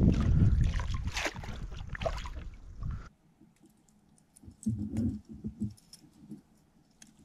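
Water splashing and sloshing with a heavy low rumble, cutting off suddenly about three seconds in. A few soft, low knocks follow a couple of seconds later.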